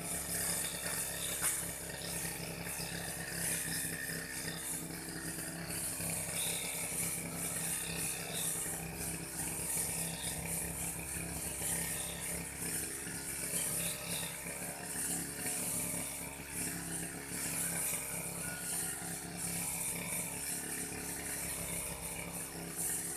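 Old petrol brush cutter running steadily while cutting grass, a constant engine drone under a hiss of cutting.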